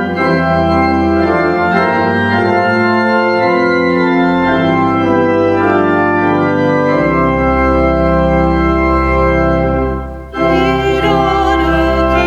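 Organ playing sustained chords, changing chord every second or two, with a brief break about ten seconds in before the next phrase.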